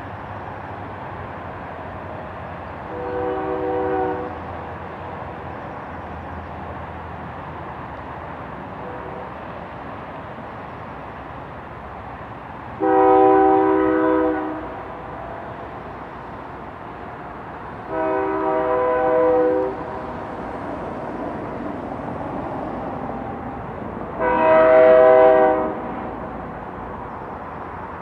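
Multi-note air horn of a BNSF diesel freight locomotive sounding four separate blasts, the first fainter than the rest, over the steady rumble of the approaching train.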